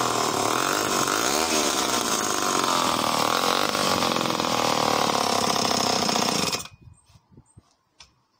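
Vintage Homelite C51 77cc two-stroke chainsaw running hard, its pitch wavering as it works through a knotty log. The engine cuts off suddenly about six and a half seconds in.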